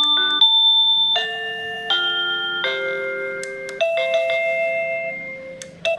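A wireless doorbell's receiver plays one of its built-in electronic chime tunes through its small speaker: a melody of clear, held bell-like notes, each lasting about half a second to a second. Near the end there is a click and a quicker tune begins.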